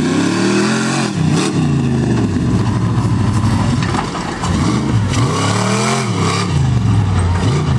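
Off-road tube-frame buggy's engine revving hard and dropping back again and again as it climbs through an obstacle course, its pitch swinging up and down several times.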